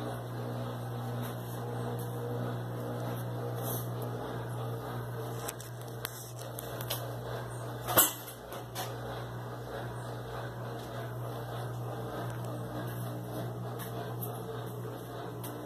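A steady low hum runs throughout, with a few faint clicks and one sharp click about halfway through.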